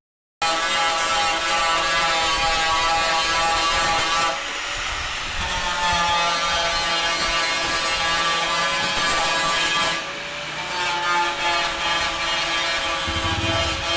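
Power tool running with a steady whine and hiss, with two brief dips in level, about four and ten seconds in.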